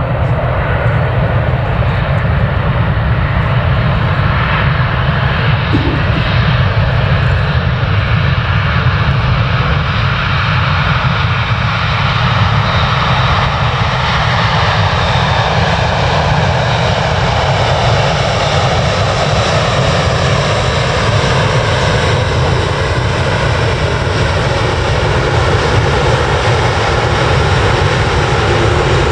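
Jet airliner's engines running loud and steady, with heavy low rumble and tones that slowly fall in pitch as the aircraft passes.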